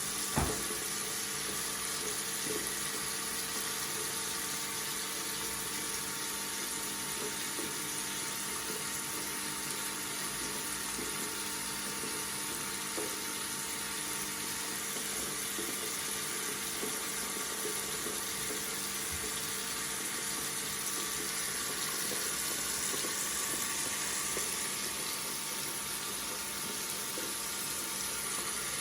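Tap water running steadily from a faucet, with one short click shortly after the start.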